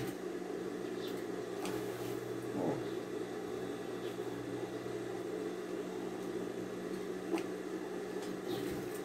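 Sewing machine running steadily, stitching a seam along lace trim, with a faint tick now and then.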